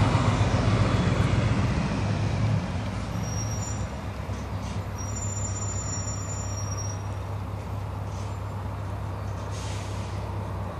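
Scania R500's V8 diesel engine running at low revs as the truck moves away. Its low rumble fades over the first three or four seconds, then holds steady in the distance. A short hiss comes near the end.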